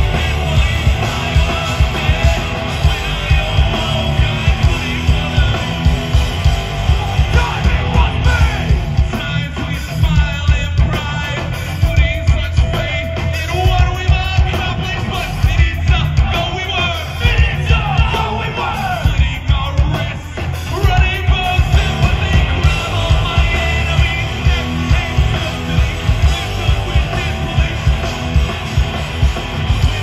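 A heavy rock band playing live through a festival PA, heard from within the crowd: distorted electric guitar and a driving drum beat, with yelled vocals over the band.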